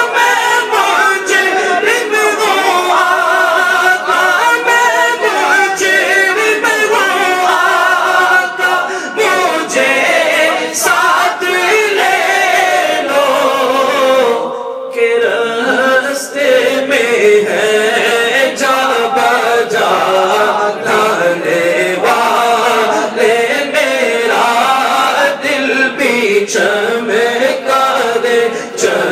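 A man singing an Urdu naat unaccompanied into a microphone over a PA, in long, drawn-out melodic lines. The voice breaks off for a moment about halfway through, then carries on.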